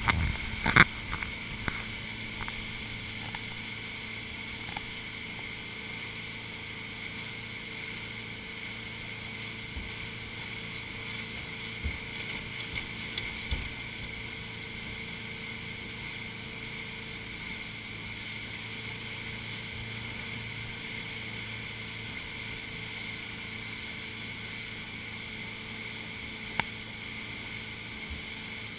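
Motorboat running at steady speed under load while towing a water skier, with the constant hum of the engine and water rushing past the hull. A few sharp knocks in the first couple of seconds, a few more about halfway through and one near the end.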